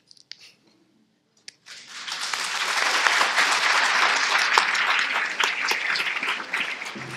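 Audience applauding: the clapping starts a little under two seconds in, holds dense and steady, then thins toward the end.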